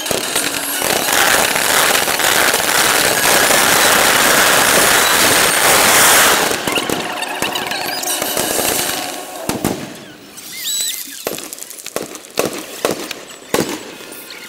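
Fireworks display finale: a dense, continuous barrage of crackling bursts and bangs for about nine seconds. It then thins to single sharp bangs every half second to second, with a couple of short whistles in among them.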